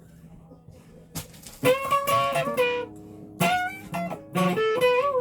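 Guitar played in three short phrases of single picked notes that slide and step in pitch, starting about a second and a half in after a quiet stretch.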